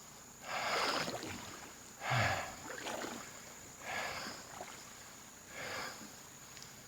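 Canoe paddle strokes in water: four swishes in a steady rhythm, about one every one and a half to two seconds.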